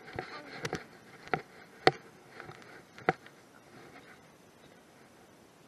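Footsteps in sandals through dry grass: rustling with a handful of sharp knocks, then settling to quiet after about three seconds.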